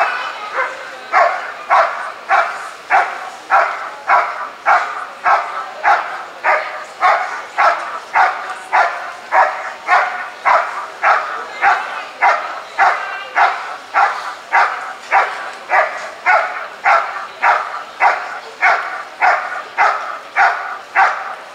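A dog barking steadily and rhythmically, just under two barks a second, without a break.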